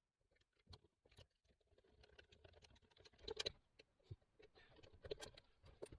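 Faint clicks, taps and rustling of hands fitting a 4G roof antenna and its bracket together, loudest a little past halfway through.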